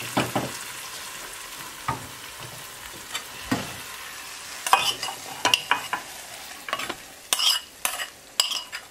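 Hot spice tempering in oil sizzling with a steady hiss that fades over the first few seconds. From about halfway in, a metal spoon scrapes and knocks against the pans as the tempering is tipped into the dal: a string of sharp clicks, thicker near the end.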